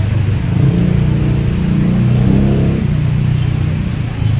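Steady rain hissing, with an engine running close by whose low hum wavers slightly in pitch.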